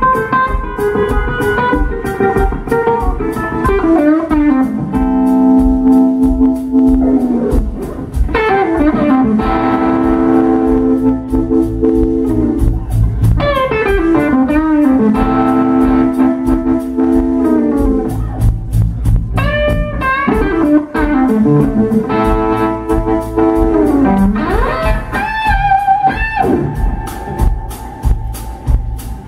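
Live blues band playing: an electric guitar lead of long held notes with bends and slides, over electric bass and a steady drum beat.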